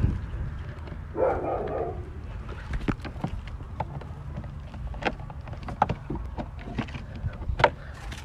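Footsteps and phone-handling noise from someone walking along a wall: scattered clicks and a brief rustle about a second in, over a low rumble of wind on the microphone.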